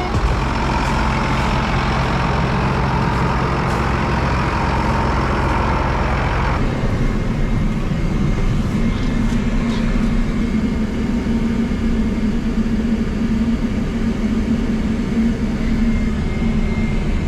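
Combine harvester running steadily while harvesting corn, a continuous engine and machinery din. About six and a half seconds in, the sound changes suddenly to a steadier low hum.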